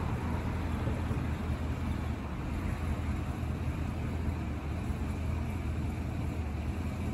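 Steady low rumble of motor vehicle traffic, with no distinct events.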